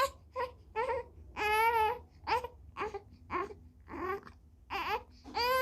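A young infant fussing: a string of short, high-pitched cries, roughly two a second, with a longer drawn-out cry about one and a half seconds in.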